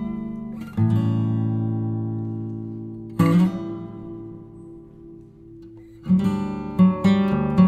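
Background music: acoustic guitar strumming chords that ring out and fade, with a quicker rhythm starting about six seconds in.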